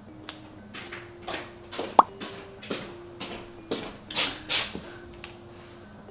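Coffee grinder parts being handled and cleaned: a quick run of light clicks, taps and brushing strokes, two or three a second, with one sharp clink about two seconds in.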